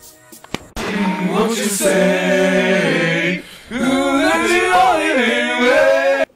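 Unaccompanied singing: a long held note, then a second phrase with wavering pitch that cuts off abruptly near the end.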